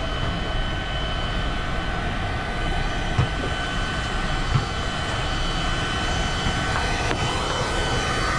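Electric heat gun running steadily: an even blower rush with a thin high whine from its fan, heating the kayak's plastic hull. Two light knocks come a few seconds in.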